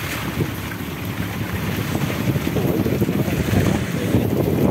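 Motorboat engine running steadily, with wind buffeting the microphone.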